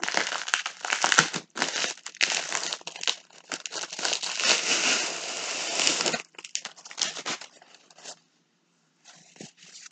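White padded plastic mailer envelope crinkling and rustling as it is handled and tipped open. Dense crinkling for about six seconds, then only a few scattered rustles, with a short near-silent gap toward the end.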